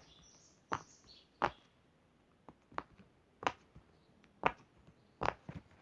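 Stiff silicone pop-it fidget toy being pressed, its bubbles popping one at a time with sharp clicks, roughly one a second.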